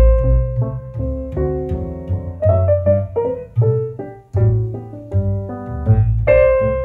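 Piano music: notes struck one after another over low bass notes.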